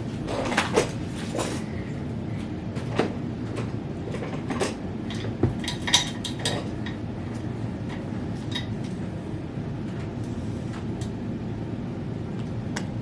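Scattered metallic clinks and knocks of hand tools and e-bike parts being handled during assembly, over a steady low background hum.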